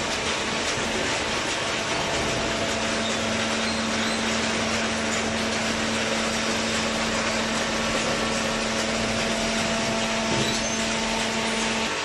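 Horizontal hydraulic cardboard baler running: a steady machine noise with a steady low hum that drops out near the end.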